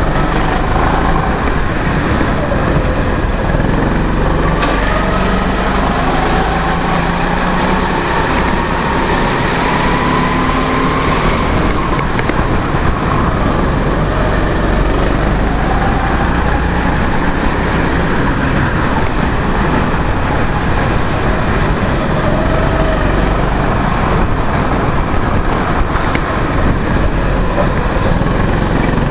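Go-kart engine running at speed, heard from the driver's helmet, its pitch rising and falling over several seconds as the kart speeds up on the straights and slows into the corners.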